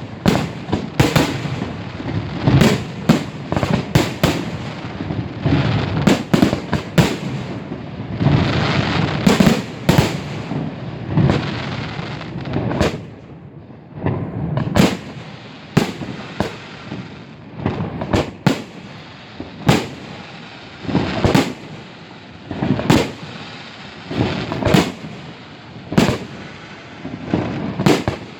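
Aerial fireworks display with shells bursting one after another. For the first dozen seconds the bangs come thick and overlapping; after that they come singly, about every one to two seconds, each trailing off in a rumbling echo.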